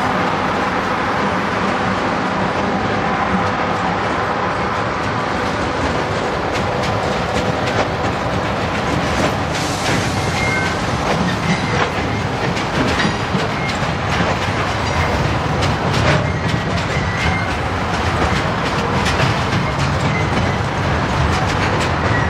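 Freight train hauled by EF-class electric locomotives rolling past: a steady rumble with wheels clicking over the rails, and short high squeals now and then from about ten seconds in.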